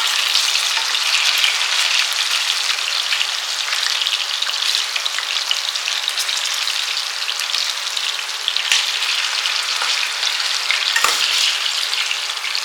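Potato pieces frying in hot oil in a karai, a steady dense crackling sizzle, with a single brief click about eleven seconds in.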